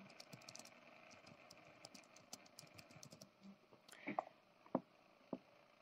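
Faint computer keyboard typing: a quick run of light key clicks for about three seconds, then a few louder separate clicks near the end.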